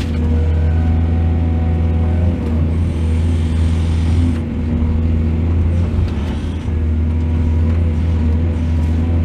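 Excavator's diesel engine running steadily under load, a deep hum whose pitch shifts a little as it works, with a spell of hiss about three seconds in.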